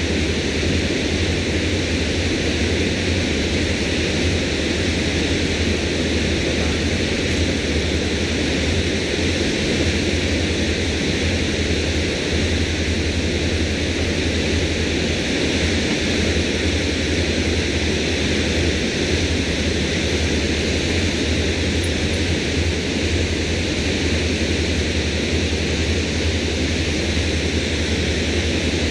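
Steady rushing of water pouring over the dam spillway, with a low rumble underneath.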